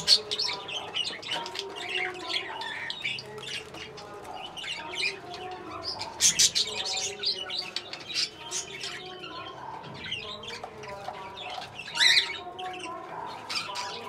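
Budgerigars chattering: a continuous stream of short chirps, squawks and warbles, with a louder burst about twelve seconds in.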